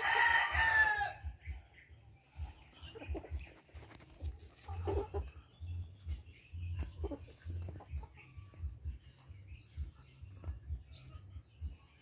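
Heritage chickens feeding: a loud drawn-out chicken call in the first second, then soft clucks and a scattered patter of beaks pecking at grated coconut on a banana leaf.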